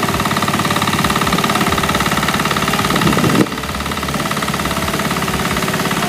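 Pasquali 10.5 HP two-wheel tractor engine running steadily under load, driving a small stationary threshing machine through its PTO shaft. The sound is a little quieter from about halfway through.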